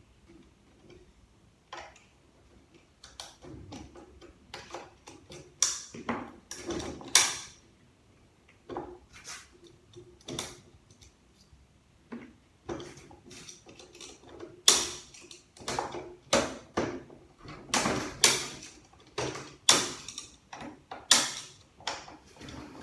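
Irregular metallic clanks, clicks and knocks of automatic-transmission parts being worked loose by hand and with tools, the strikes louder and closer together in the second half.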